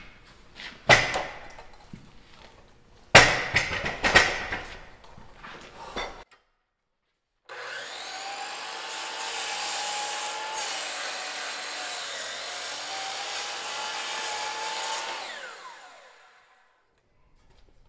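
Loud wooden knocks and thumps as a heavy fence post is handled and set on the saw. Then a DeWalt sliding compound miter saw's motor runs for about eight seconds while its blade cuts through a black locust fence post, and it winds down with a falling whine near the end.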